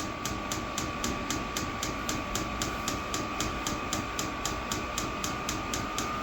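Diesel heater's fuel dosing pump ticking rapidly and evenly, about five clicks a second, while it primes the fuel line, over a steady high whine.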